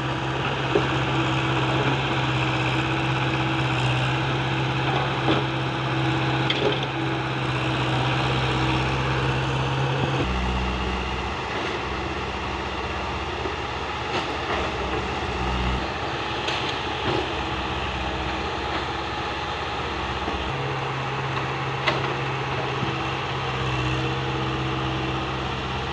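Diesel engine of a JCB tracked excavator running steadily while it digs, with its tone changing about 10 seconds in and changing back about 20 seconds in. A few short knocks sound over it.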